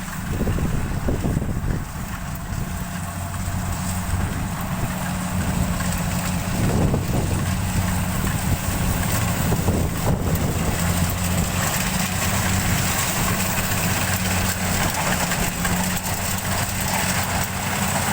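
Rice combine harvester running steadily as it harvests, its diesel engine humming under the constant noise of the machinery.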